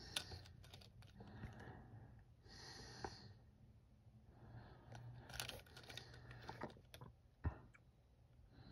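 Faint handling noise of fingers turning a Hot Wheels Bigfoot toy monster truck: soft rustles and small plastic clicks, with a sharper click about seven and a half seconds in.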